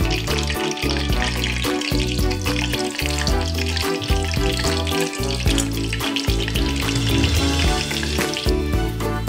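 Hot oil sizzling and crackling as breadcrumb-coated, bread-wrapped hot dogs deep-fry in a saucepan. The sizzling starts at once and drops away shortly before the end. Background music plays underneath.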